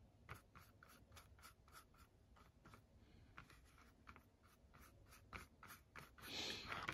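Faint scratchy strokes of a paintbrush dragging acrylic paint across cardboard, a few strokes a second, with a longer, louder swish near the end.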